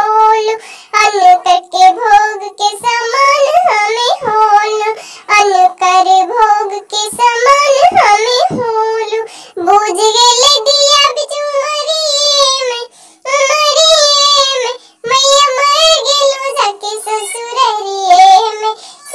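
A high-pitched, sped-up cartoon-style voice singing a sad folk song about child marriage, in long phrases with two short breaks in the second half.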